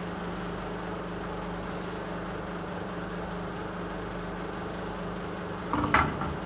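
Steady low hum, with a short sharp crackle near the end.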